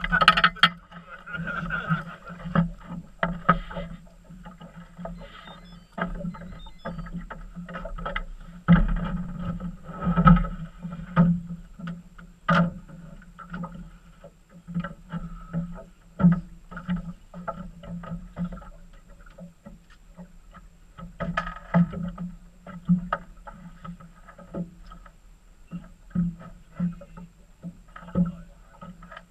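Water slapping and lapping against the hull of a small fishing boat, with irregular knocks throughout, over a steady low hum.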